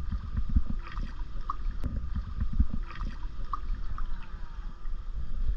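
Pool water sloshing and lapping around a wading person, under an uneven low rumble of wind buffeting the microphone.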